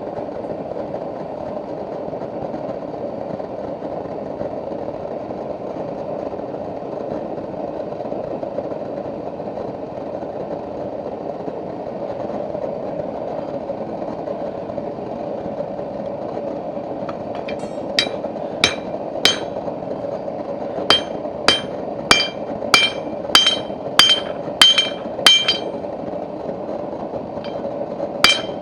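A steady rushing noise runs throughout. About two-thirds of the way in, a blacksmith's hammer starts striking steel on an anvil, each blow ringing, about one and a half blows a second, in runs broken by short pauses.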